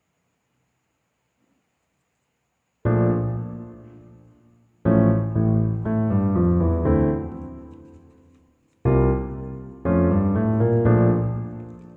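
Keyboard music, piano-like: near silence for about three seconds, then struck chords and notes that ring out and fade, coming in phrases that restart about two, six and seven seconds in.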